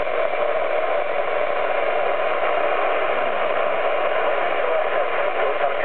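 Amateur radio transceiver's speaker giving a steady hiss of receiver static, with a faint steady tone under it: the radio is open on the satellite channel with no strong signal coming through.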